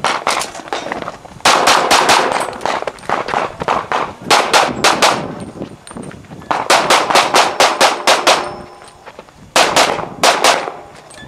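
Pistol fire in quick strings of about five to eight shots each, roughly four strings with short pauses between them as the shooter moves between positions on a practical shooting stage.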